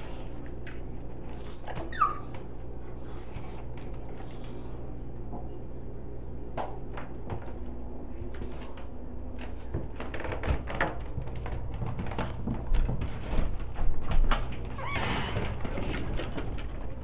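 A dog whines once, a falling whine about two seconds in, over repeated short high-pitched chirps. From about ten seconds in come a run of knocks and thumps, loudest near fourteen seconds.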